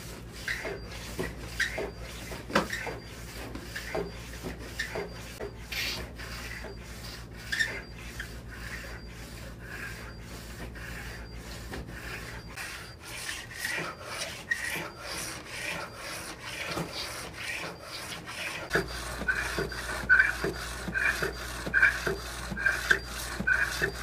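Small conveyor on a machine-vision inspection rig running: a steady low motor hum with a regular scraping click about twice a second. The hum stops for a few seconds partway through and comes back, and the clicks get louder near the end.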